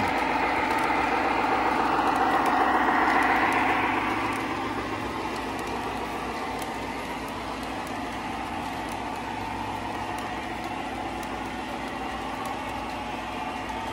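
Lionel O-gauge American Freedom Train running past on three-rail track: the steady whir and rumble of its motors and wheels, loudest in the first few seconds as the locomotive passes close, then a little quieter as the passenger cars roll by.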